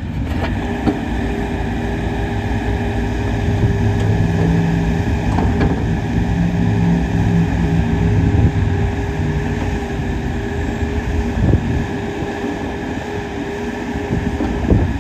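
Bobcat E42 mini excavator's diesel engine running steadily, a little stronger for a few seconds in the middle, with a couple of brief knocks in the last few seconds.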